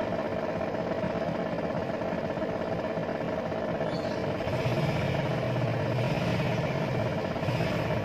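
Twin-tub washing machine's spin-dryer motor humming steadily while it stays still and doesn't spin, the hum growing stronger about halfway through. The motor is powered but stalled, which the repairer first puts down to a failed capacitor.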